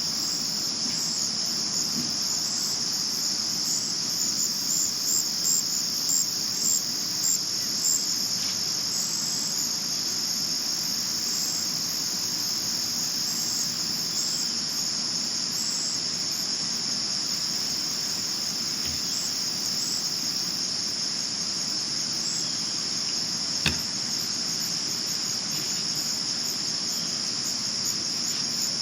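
Crickets chirping in a steady high-pitched chorus, with a louder chirp repeating about twice a second for a few seconds near the start. One short sharp click comes late on.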